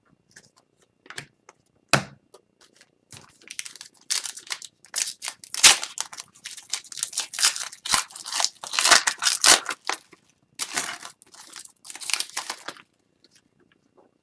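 Upper Deck Series 1 hockey card pack torn open by hand, the foil wrapper crinkling as the cards are pulled out and handled. One sharp click comes about two seconds in, then a run of scratchy rustling that stops near the end.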